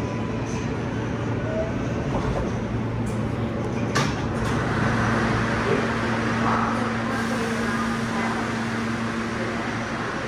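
Interior noise of an L train subway car: a steady hum and rushing noise from the car's running gear and ventilation, with a single sharp clack about four seconds in, after which the noise swells briefly.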